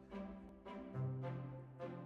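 Background music: held chords over a sustained low note, with accented strikes about twice a second.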